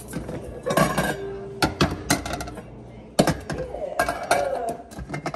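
Metal pots and pans clanking together as they are shifted around on a cabinet shelf: a string of separate knocks and clinks, some with a short ring.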